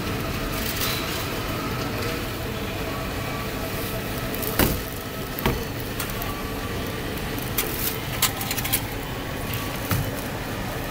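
Reverse vending machine printing a bottle-deposit receipt, with several sharp clicks and knocks over a steady shop-floor hum; the clicks come in a cluster a few seconds before the receipt feeds out of the slot.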